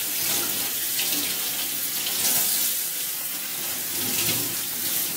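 Kitchen tap running, its stream splashing onto an enamel-coated griddle plate held under it in a stainless-steel sink as the plate is rinsed with clean water. A steady, splashy hiss that shifts a little as the plate is turned in the stream.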